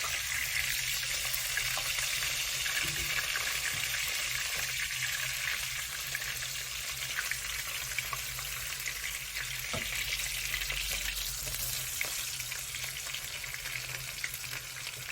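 Salmon fillets pan-frying in hot oil on their second side: a steady sizzle with many small, scattered crackles.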